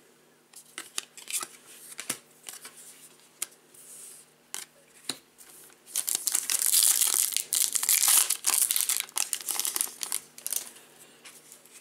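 Trading cards handled with light scattered clicks, then a foil trading-card pack wrapper crinkling and tearing loudly for several seconds from about six seconds in.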